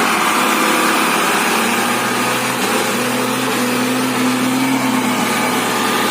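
Truck engine running steadily, its note rising a little about two and a half seconds in, over a constant hiss.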